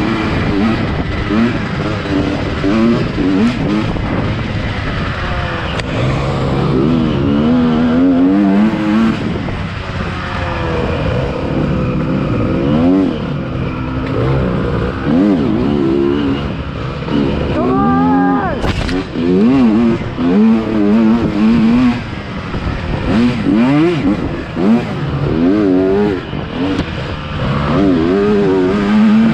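Dirt bike engine revving up and down as it is ridden hard along a twisting woodland trail, heard close from the rider's helmet. The pitch rises and falls every second or two, with one sharp high rev about two-thirds of the way through.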